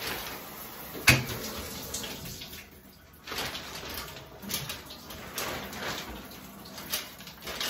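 Handling noises in a bathtub: a sharp knock about a second in, then several short swishing noises.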